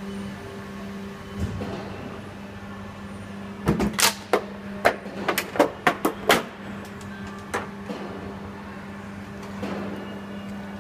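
Large injection moulding machine running with a steady hum. A quick run of about ten sharp clacks and knocks starts about four seconds in, with one more a little later, from the open bumper mould and machine.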